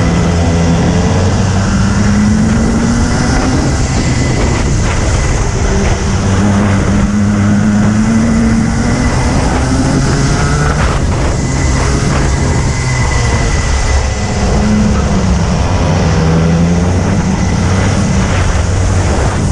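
Racing kart engine heard onboard at full race pace, its pitch climbing as it accelerates out of the corners and down the straights and dropping off each time it slows for the next bend, several times over.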